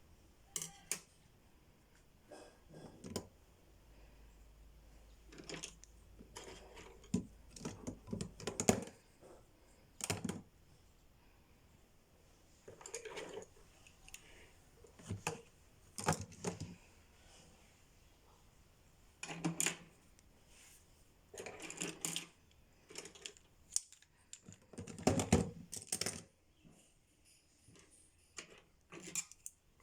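Makeup brushes clicking and clattering against a dishwasher's basket as they are put in, in scattered bursts of small hard knocks with pauses between.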